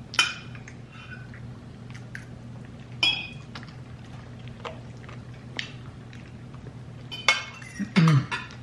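Dishes and cutlery clinking at a meal: a few sharp, scattered clinks over a steady low hum.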